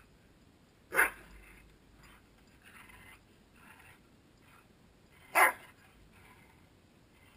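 A dog barking twice, two short loud barks about four seconds apart.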